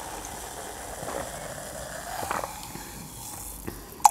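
Soft gulps of fizzy soda being swallowed from a glass, close to the microphone. Right at the end a sharp clink as the bottle meets the glass and pouring begins.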